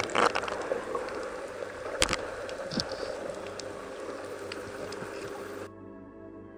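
Underwater sound from a diving camera moving along a reef: a steady water rush with a few sharp knocks and clicks, the loudest about two seconds in. Near the end it cuts off suddenly and soft ambient music takes over.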